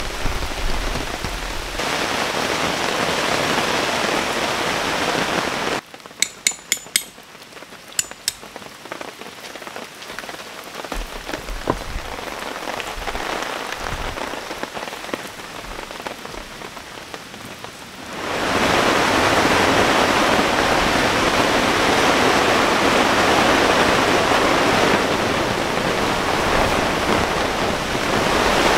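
Heavy typhoon rain falling steadily on a camping tarp and tent. About six seconds in it drops to a quieter patter with a few sharp clicks. From about eighteen seconds a louder, steady rush of wind and rain against the tent fabric takes over.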